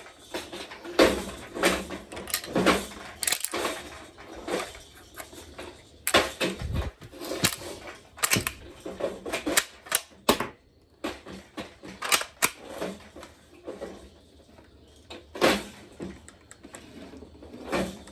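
Irregular metallic clicks and clacks of a Lebel Mle 1886 M93 rifle's bolt action being handled and worked by hand, with short gaps between the louder clacks.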